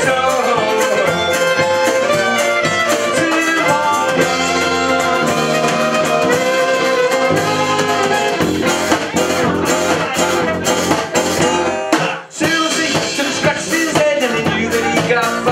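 Live acoustic folk band playing: fiddle over strummed banjo and guitars with a drum kit. The music stops for a moment about three-quarters of the way through, and the band comes straight back in.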